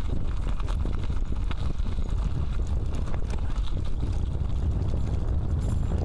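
A riding bicycle's wind noise rumbling on the microphone, with many small irregular clicks and rattles from the bike as it rolls along.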